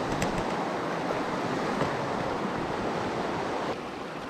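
Shallow mountain river rushing steadily over rocks, with a few faint clicks; the rush drops slightly about three-quarters of the way through.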